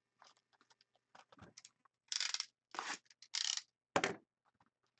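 Trading-card pack packaging being crinkled and torn open by hand, in several short rustling bursts, with a sharper one about four seconds in.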